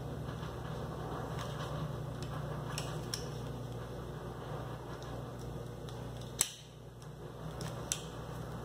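Steady low mechanical hum with faint clicks and rustles of vinyl being handled and picked at with a weeding hook. There is one sharp click about six and a half seconds in, and a smaller one near the end.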